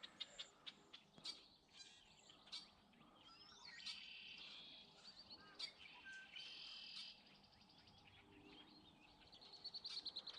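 Faint songbirds chirping and trilling, several calls overlapping, with a quick run of chirps near the end. A few sharp clicks are heard among them.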